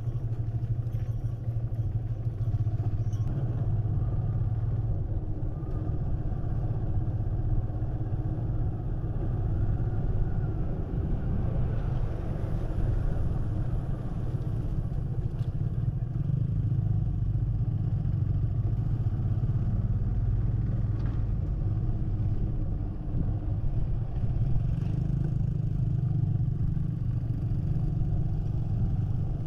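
Motorcycle engine running steadily on a slow ride, a low continuous drone.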